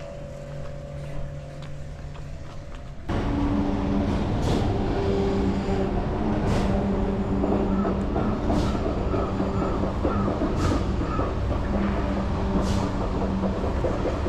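About three seconds in, a loud, steady mechanical rumble with a droning hum cuts in abruptly, with a short hiss about every two seconds.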